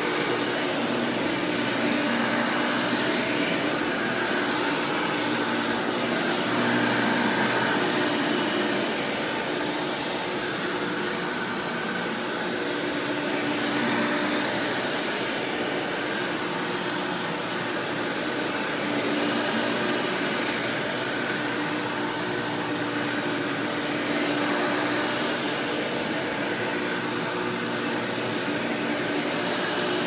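A 1995 Hoover Power Drive Supreme upright vacuum running steadily, motor and fan humming with a whooshing airflow. Its loudness swells and eases every few seconds.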